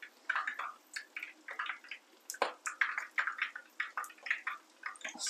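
Hot oil bubbling and crackling around a battered potato frying in a small pan, in a run of short, irregular pops and spatters, with one sharper crack about two and a half seconds in.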